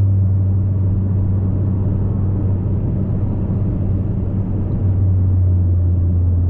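Mazda3 with a muffler delete, its exhaust giving a steady low drone while cruising, heard from inside the car.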